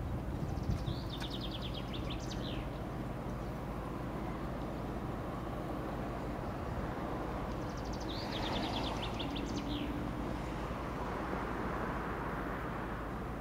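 A songbird sings twice, each time a quick trill of notes falling in pitch and lasting about two seconds. Under it runs the steady low rumble of idling diesel locomotives.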